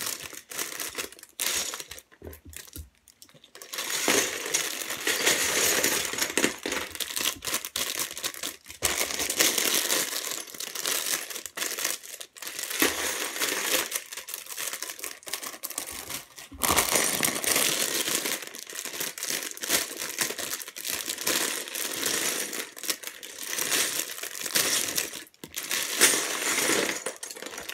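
Small LEGO pieces poured and shaken out of thin plastic bags, clattering into a plastic storage bin, with the bags crinkling as they are emptied. There are a few short pauses between bags.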